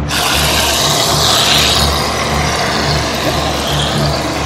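Reddi-wip aerosol whipped-cream can spraying: a loud, steady hiss that starts suddenly as the nozzle is pressed and cream is squirted into a pie crust.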